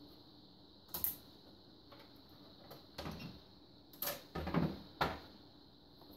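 The plastic top cover of an XYZprinting Da Vinci 1.0A 3D printer being handled and lifted off its metal frame: several separate clicks and knocks, the loudest between about four and five seconds in.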